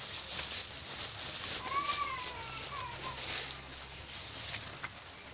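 Animal calls: one short arched cry about two seconds in and a fainter one just after, over a steady high hiss.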